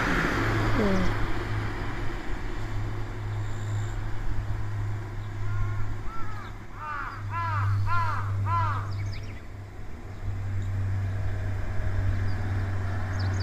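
A crow cawing in a quick run of about seven short calls, about halfway through, over a steady low hum.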